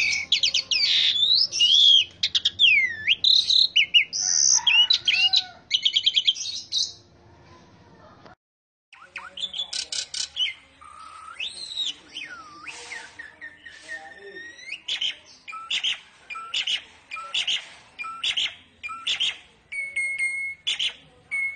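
Male Asian pied starling (jalak suren) singing a varied song of mimicked phrases (isian). It opens with a dense run of whistles, swooping glides and rapid trills. After a short break come sparser, separate whistled notes and calls repeated every second or so.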